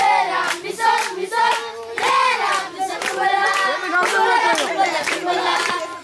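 A group of children clapping a steady rhythm, about three to four claps a second, while singing together.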